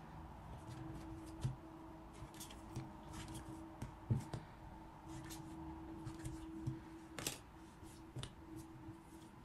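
A knife cutting a roll of soft yeast dough into pieces on a pastry mat, and hands handling the dough: a few soft, scattered taps and scrapes over a faint steady hum.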